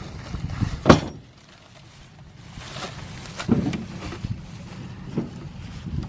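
A sharp knock about a second in, the loudest sound, followed by a few softer knocks and clunks over a low steady rumble.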